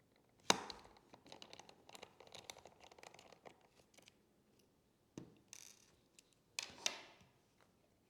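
Faint clicks and scrapes of small parts being handled inside an open laptop as the M.2 NVMe SSD is unscrewed and pulled from its slot. There is a sharp click about half a second in, then light ticking and scraping for a few seconds, and two more sharp clicks near the end.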